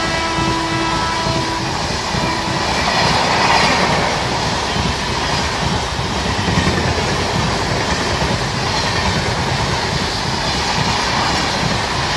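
Rajdhani Express passenger train running past at speed, coach wheels clattering over the rail joints in a continuous rumbling rush. The last of the WAP-7 electric locomotive's horn fades out in the first second or two, and a faint whine falls in pitch a few seconds in.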